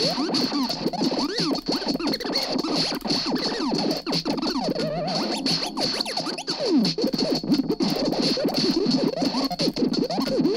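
Lo-fi experimental noise music: a dense, chaotic tangle of rapid sliding pitches swooping up and down over a steady high-pitched whine.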